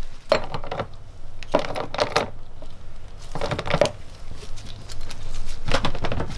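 Socket ratchet wrench clicking in four short bursts, about one every second and a half, as it tightens the nut on a toilet's floor bolt.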